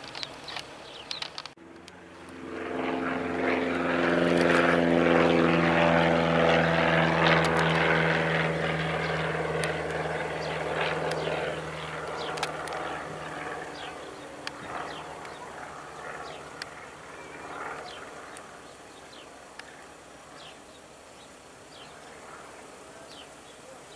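Piper L-21B Super Cub's four-cylinder Lycoming engine and propeller as the plane climbs out after takeoff. The drone comes in about two seconds in, is loudest a few seconds later, then fades slowly as the plane flies away.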